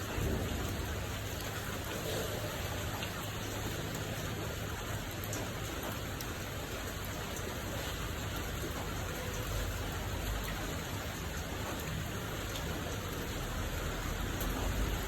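Steady rain falling: an even hiss with a low rumble underneath and scattered sharp ticks of individual drops.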